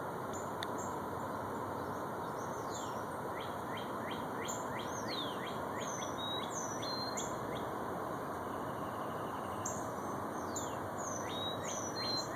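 Birds chirping in quick runs of short, falling notes, with a few brief clear whistles, over a steady background hiss. The chirping comes in clusters, thickest about four seconds in and again near the end.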